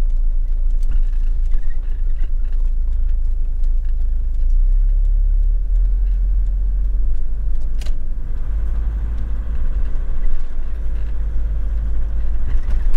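Camper van driving along a street, heard from inside the cabin: a steady low rumble of engine and road noise, with one sharp click about eight seconds in.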